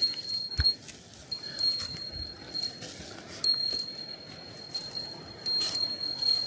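A small bear bell jingling and ringing with the walker's movement. The ringing breaks off briefly about a second in and again near the middle, and there is a dull thump about half a second in.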